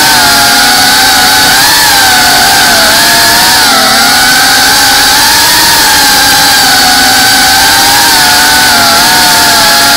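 FPV quadcopter's motors and propellers whining loudly, the pitch rising and dipping a little as the throttle changes, heard from the camera on board the drone.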